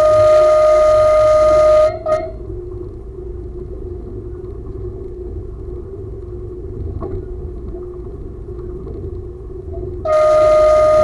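Train horn blowing one steady note, held until about two seconds in and followed by a short toot as the train nears a level crossing. The train then runs on with a steady hum and rumble, and the horn starts another long note near the end.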